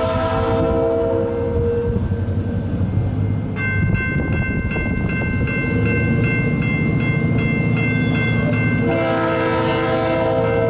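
EMD diesel locomotive working hard at full throttle, its engine rumbling steadily, while its three-chime air horn sounds a long blast that ends about two seconds in and starts again near the end. In between, a bell rings steadily with evenly spaced strokes.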